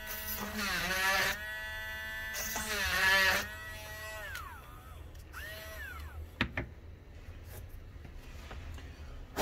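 Handheld rotary tool running at a steady high whine, dipping in pitch twice as the bit bites through the laptop's plastic case while drilling holes for the hinge screws. It winds down about four seconds in, gives one short spin up and down, and a couple of sharp clicks follow.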